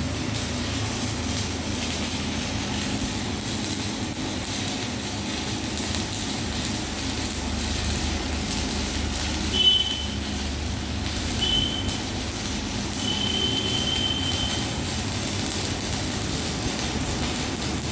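Shielded metal arc (stick) welding: the electrode arc crackles and hisses steadily while a flat-position fillet weld is run. A few brief high-pitched tones sound about halfway through.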